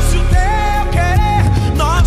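Worship band playing: bass, drums, guitar and keyboards, with a gliding, wavering melody line on top.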